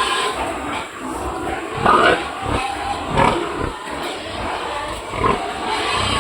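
Pigs grunting and squealing in their pen, with several loud calls at irregular intervals.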